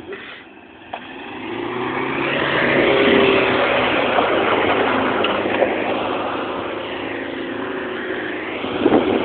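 Toyota Hilux pickup driving past close by on a grass field, its engine revving up and down over a rush of tyre and wind noise. The sound swells from about a second in to its loudest around three seconds, then eases, with a few short knocks near the end.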